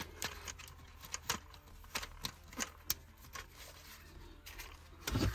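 Faint, irregular plastic clicks and taps from hands handling a small foam RC plane's nose and battery parts, with a low bump near the end.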